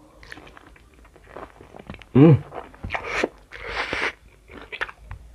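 Close-up mouth sounds of chewing and crunching instant noodles with omelette and crunchy coated-peanut snacks (sukro), with a short hummed vocal sound about two seconds in. Light clicks of chopsticks against the tray are heard between bites.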